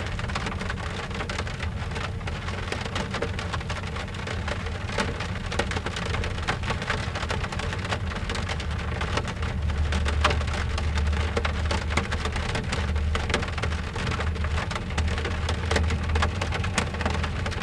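Steady rain falling on a car's window glass, a dense stream of individual drop ticks over a low rumble that swells in the second half.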